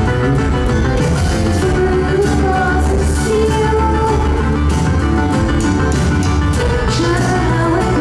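A live pop-rock band playing, with a woman singing the melody close to the microphone, over bass and drum hits.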